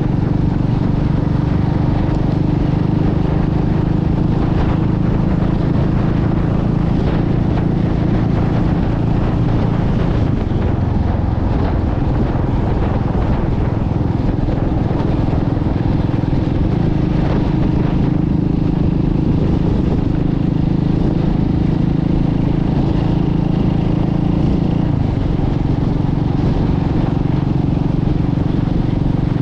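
Motorcycle engine running at a steady cruising speed under constant wind rush, the engine note shifting slightly a couple of times.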